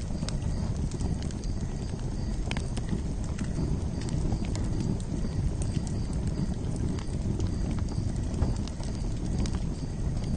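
Campfire burning: a steady low rumble with irregular sharp crackles and pops of burning wood.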